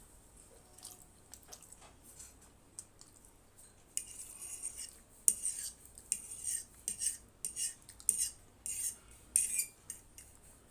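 Metal cutlery scraping and clinking against a dish of Maggi noodles, a quick run of short scrapes starting about four seconds in and lasting some five seconds, after a few faint clicks.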